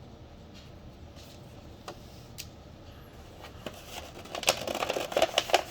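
Handling of an amplifier wiring kit's packaged cables: a few single clicks, then about four seconds in a burst of crinkling and clicking for a second and a half or so.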